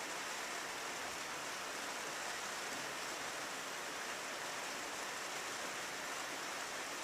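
Steady rain falling, an even hiss with no distinct drops or thunder; recorded as rain on a window.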